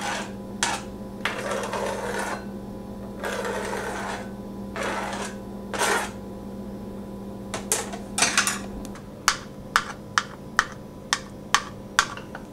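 Kitchen knife scraping across a glass cutting board as chopped hard-boiled egg is pushed into a glass bowl. In the last few seconds the knife chops egg on the glass board in sharp knocks, about two a second.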